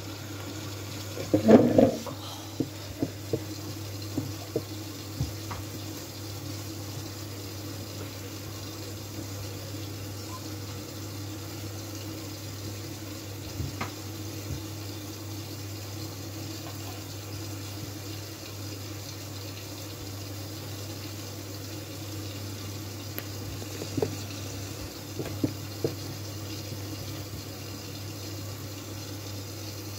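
Miele W433S washing machine mid-cycle: water running and sloshing in the drum over a steady hum, with a few knocks, the loudest about two seconds in.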